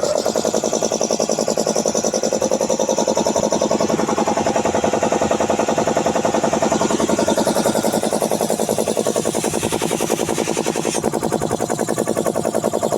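Puma 3080 piston air compressor starting abruptly and running with a loud, rapid, even knocking of the pump.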